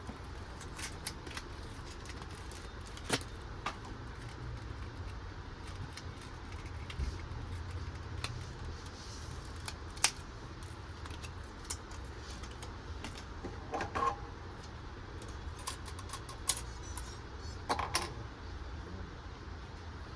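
Scattered light clicks and taps of an Intel Core i5-6500 processor and an LGA 1151 motherboard socket being handled as the chip is fitted, over a steady low hum.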